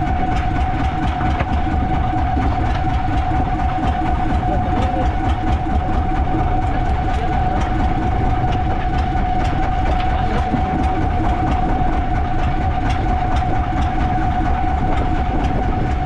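Boat engine running steadily under way, a constant whine over a low rumble with a continuous light rattle.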